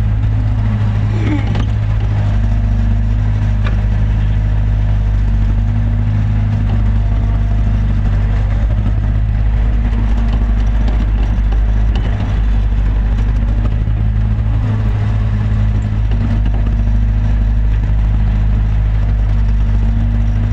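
A hydraulic excavator's diesel engine running steadily, a constant low hum heard from inside the operator's cab while the boom and bucket are worked.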